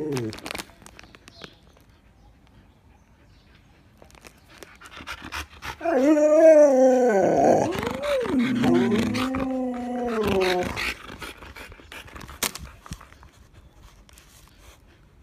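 Siberian husky "talking": a loud, drawn-out vocalizing that rises and falls in pitch for about five seconds, starting around six seconds in, as it begs for a treat.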